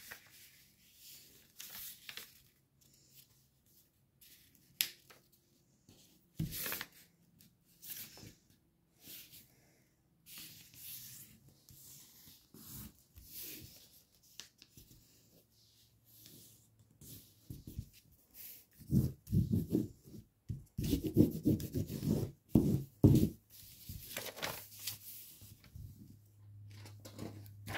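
A sheet of paper being folded by hand and its crease rubbed flat against a tabletop: intermittent rustling and rubbing strokes, busiest and loudest about twenty seconds in.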